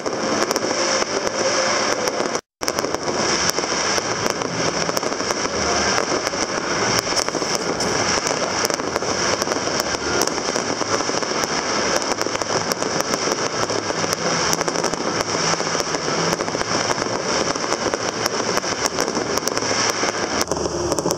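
Aerial fireworks display going off: dense, continuous crackling with many sharp bangs. A brief dropout to silence comes about two and a half seconds in.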